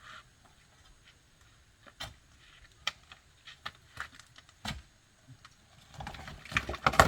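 Scattered sharp knocks and clicks of hard objects striking during stone retaining-wall work: a few single knocks about a second apart, then a busier run of knocks near the end.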